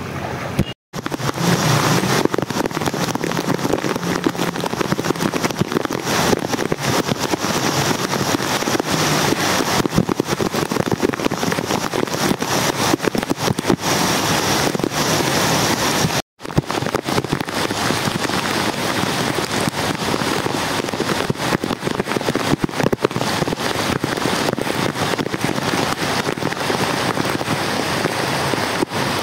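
Heavy monsoon rain pouring onto a flooded street: a steady, dense, crackling hiss of downpour. It cuts out to silence briefly twice, about a second in and again about halfway through.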